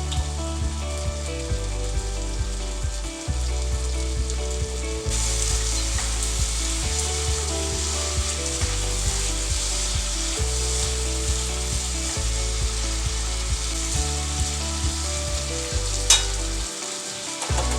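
Chopped celery, onion, potato and crushed garlic sizzling in hot oil in a pot, with stirring. The sizzle grows brighter about five seconds in, and a sharp clink sounds near the end.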